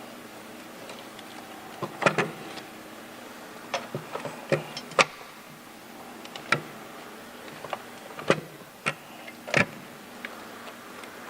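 Metal clinks and taps from hand tools and bolts as brackets are refitted on a Jeep engine's intake plenum: about nine short, sharp knocks at irregular intervals.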